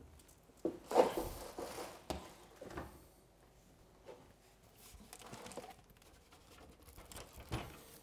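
Handling noises from a Fractal Design Define R5 PC tower and its removed windowed side panel. A sharp knock comes about a second in, then lighter knocks and scraping as the case is shifted and turned around.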